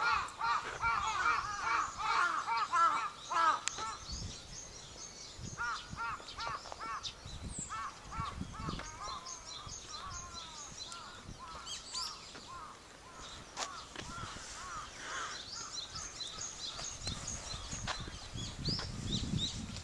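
Dawn birdsong: a bird gives a rapid run of loud, repeated calls for the first few seconds, then calls more sparsely, while many smaller birds chirp and twitter higher up throughout.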